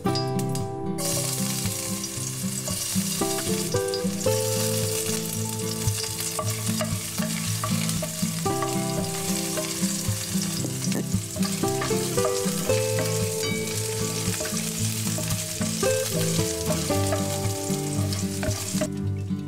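Chopped shallots and spring onion sizzling in hot oil in a stainless steel frying pan as they are stirred with a wooden spatula. The sizzling starts about a second in, when they hit the oil, and cuts off about a second before the end. Background music plays throughout.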